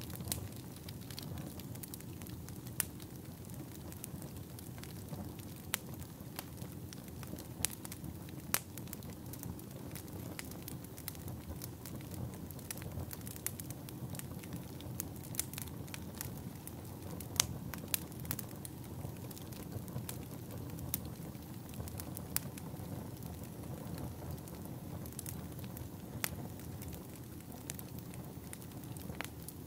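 Fire crackling steadily, with irregular sharp pops and snaps over a low continuous rumble.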